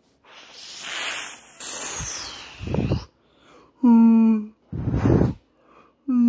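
A person's voice making wordless sounds: a breathy whoosh, then a hummed note held for under a second, a noisy breath, and a second held hum near the end.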